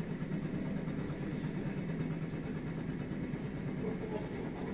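Steady low drone of a heavy-lift helicopter's engines and rotor, heard at a distance.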